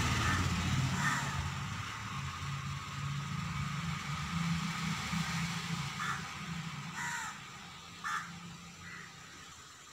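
A low rumble that slowly fades, with a few short calls: one about a second in, then three about a second apart near the end.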